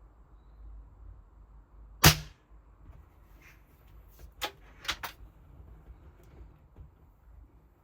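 1949 BSA Cadet Major .177 air rifle firing one shot about two seconds in: a single loud, sharp crack with a brief ring. A few lighter clicks follow a couple of seconds later.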